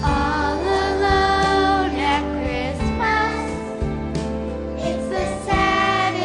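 A girl singing solo into a microphone over instrumental accompaniment, her held notes wavering with vibrato.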